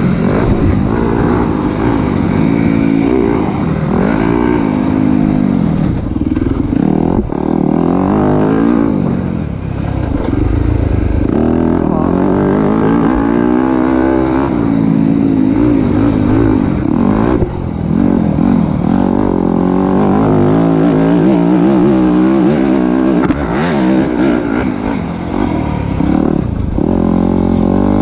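Motocross bike engine revving hard and dropping back again and again as the rider accelerates, shifts and slows through the track's sections, the pitch rising and falling every few seconds.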